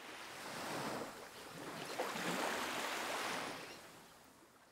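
Faint rushing noise sound effect for a channel logo intro, swelling twice like surf washing in and then fading out to silence about four seconds in.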